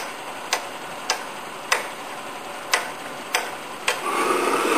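Hand pressure pump on a hot bulb engine's burner fuel tank clicking sharply with each stroke, seven times, about every half second, as pressure is pumped in. About four seconds in, a steady rushing hiss starts as the pressurised fuel vaporises at the burner.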